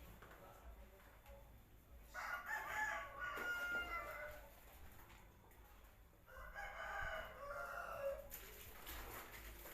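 Rooster crowing twice, each crow lasting about two seconds.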